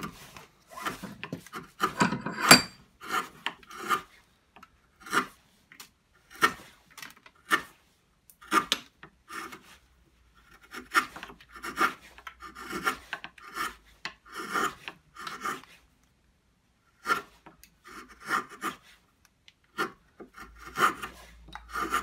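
Half-inch wood chisel paring a small wooden block by hand: a run of short scraping cuts, one after another, with a couple of brief pauses and a single sharp tap a couple of seconds in.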